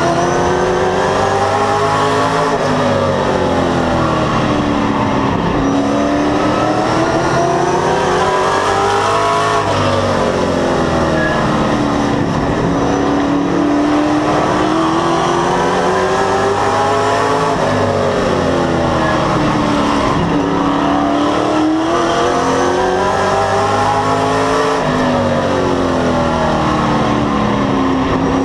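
Race car engine heard from inside the cockpit at racing speed, its pitch climbing as it accelerates down each straightaway and dropping as the driver lifts for the turns, about five times, once every five to six seconds.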